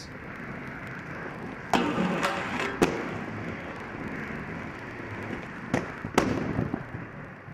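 Hard skate wheels rolling on concrete, with several sharp clacks of wheels and frames hitting the ground, twice in quick groups.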